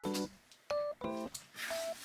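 Background music: a light tune of short, separate notes and chords.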